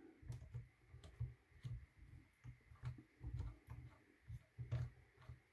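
Faint scattered clicks and low bumps as a hex screwdriver drives a screw through a 3D-printed plastic rest body into its metal post.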